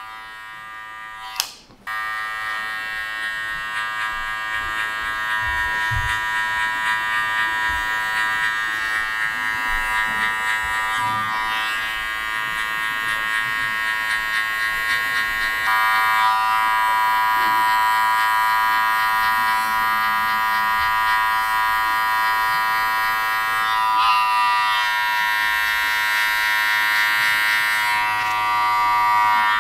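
Electric hair clippers, their blade lever set close to 0.5, running with a steady buzz while fading short hair. The buzz comes in about two seconds in and gets stronger around the middle.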